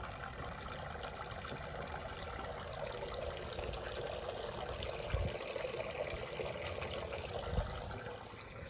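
Water pouring and splashing steadily, easing off near the end, with two low thumps in the second half.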